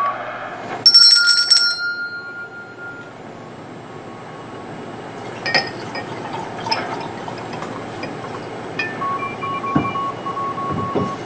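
A sharp ringing clink about a second in, then red wine being poured into a wine glass. Near the end, faint Morse code tones keyed on and off come from the Ten Tec Century 21 transceiver's receiver.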